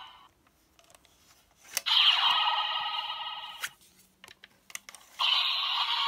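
Electronic sound effects from a Bandai DX Chemirizer role-play toy's small speaker as Legend Rider cards are used in it. A jingle of about two seconds, then a few sharp clicks from handling the toy, then another jingle starts about five seconds in.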